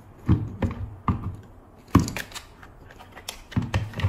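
A handful of sharp, irregularly spaced plastic clicks and knocks from handling a digital multimeter and its test probes while setting up a mains voltage measurement. The loudest knock comes about two seconds in.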